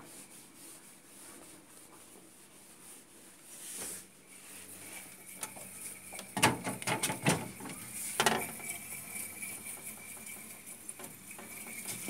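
Clicks and knocks of hands working at an open refrigerator's freezer compartment: a cluster about six to seven and a half seconds in and one more about eight seconds in, over a faint steady hiss.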